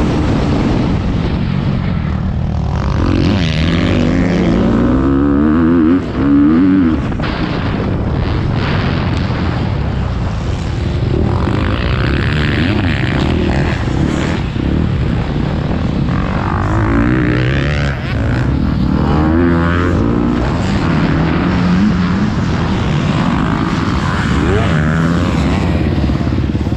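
Motocross bike engine heard onboard, revving up and down as the throttle is opened and shut over and over through the lap.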